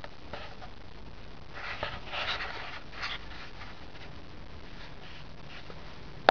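Faint rustling and scuffing, loudest about two seconds in, over a steady low hiss.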